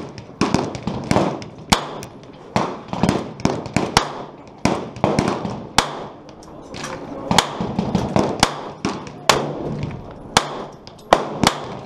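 Gunshots from several shooters along a rifle range firing line, sharp cracks at irregular spacing, about two a second, some much louder than others, each with a short fading tail.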